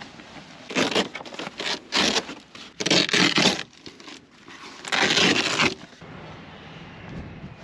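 Camping gear being packed up: four bursts of rustling, crumpling and scraping, the longest about three seconds in and again near five seconds.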